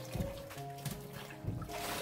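Tap water running and splashing into a stainless steel bowl of rinse water, under background music with steady held notes.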